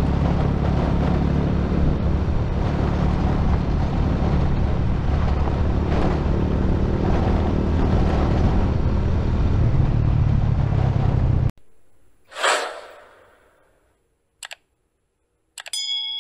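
Steady wind and road rumble from a vehicle moving along a gravel track, cutting off suddenly about three-quarters of the way through. Then comes a subscribe-button animation's sound effects: a whoosh, a short click and a bell-like chime near the end.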